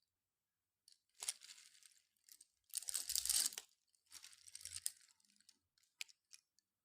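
Slate pencil being crunched between the teeth: three crunchy bursts, the middle one the loudest and longest, then a few short sharp cracks near the end.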